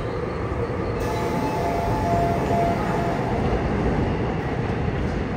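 Seoul Subway Line 6 train's doors and the platform screen doors closing at the station, with a steady two-note warning tone from about one to three seconds in, over the continuous hum of the stopped train.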